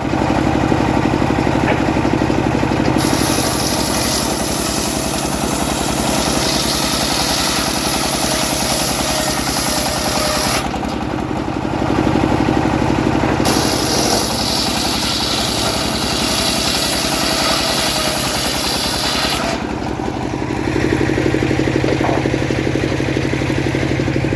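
Engine-driven homemade sawmill running steadily while its blade rips through a teak log. The hiss of the cut drops away for a few seconds twice, about halfway through and again near the end, leaving the engine running on its own.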